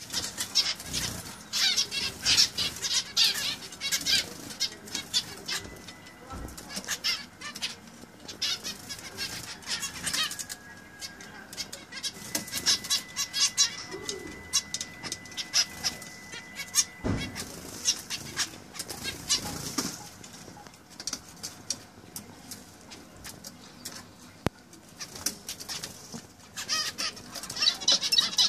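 Several zebra finches calling with many rapid, high, short chirps, mixed with the flutter of their wings. The calls come in busy bursts, thin out in the second half and pick up again near the end.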